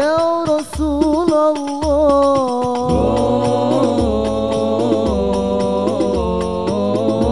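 Hadrah al-banjari group performing a sholawat: several male voices singing together through microphones, holding long notes that slide between pitches, over deep thumps and lighter slaps of terbang frame drums.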